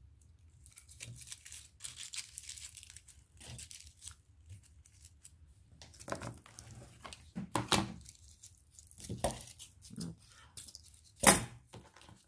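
Crinkling and tearing of craft materials being handled, with several light knocks and one sharp click about eleven seconds in, the loudest sound.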